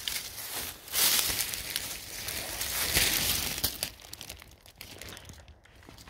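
Clear plastic sheeting crinkling as it is handled and pushed aside. The rustle starts about a second in and lasts a little under three seconds.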